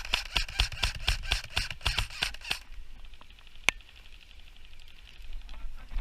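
Airsoft guns firing a quick string of shots, about six a second, that stops about two and a half seconds in, followed by one more sharp shot near the four-second mark.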